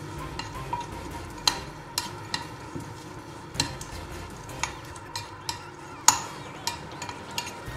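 Metal spoon stirring a thick mix of rolled oats, honey and peanut butter in a bowl: a soft scraping with irregular sharp clinks of the spoon against the bowl, about two or three a second.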